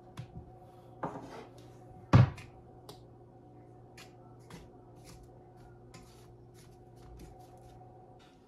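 Kitchen handling noises over a steady low hum: one loud knock about two seconds in, with smaller knocks before it, then light taps and clicks as hands dredge smelt in a bowl of flour.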